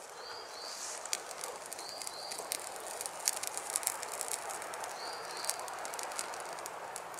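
Wood campfire crackling, with scattered sharp pops over a steady hiss, as damp wood burns. A small bird calls three times, each call a pair of short high notes.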